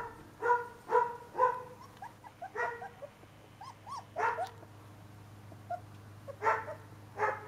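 Four-week-old Dalmatian puppy yipping: short, high barks, a few in quick succession at first, then softer whimpering squeaks, and more yips near the end.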